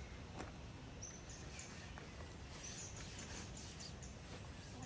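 Quiet outdoor ambience: steady low background noise with a few faint, short, high bird chirps.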